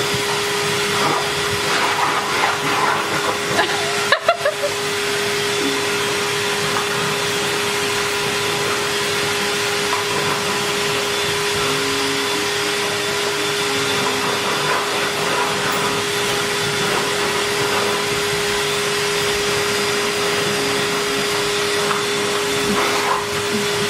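Vacuum cleaner running steadily with a constant hum, with a brief clatter of knocks about four seconds in.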